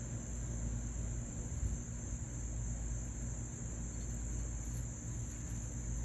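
Steady high-pitched drone of insects, unbroken throughout, over a low background rumble.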